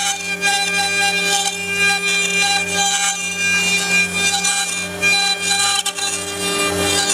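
CNC router spindle running with a steady whine as its fine bit carves an ornamental relief pattern into a wood panel.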